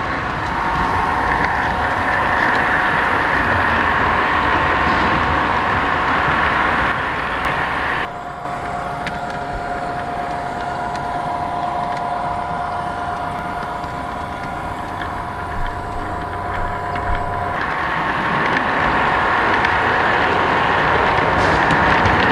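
O-gauge model train running along the track: a steady rolling, mechanical running noise with a steady hum. The sound changes abruptly about eight seconds in and again a little after seventeen seconds.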